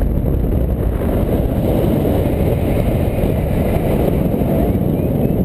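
Wind buffeting the camera's microphone in flight under a paraglider in strong wind: a loud, steady, low noise.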